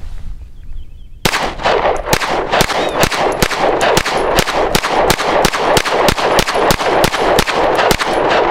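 A Taurus G3 9mm pistol firing Herter's 115-grain FMJ in a rapid string, about three shots a second, starting about a second in. Echo fills the gaps between shots.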